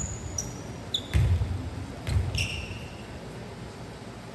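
Volleyball thumps and sneaker squeaks on a gym floor: three ball impacts about a second apart, with short high-pitched shoe squeaks between them, fading out over the last second and a half.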